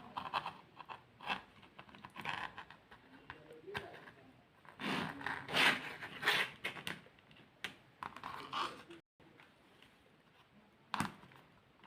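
Irregular handling noises: scraping, rustling and clicks, loudest about halfway through, with one sharp click near the end.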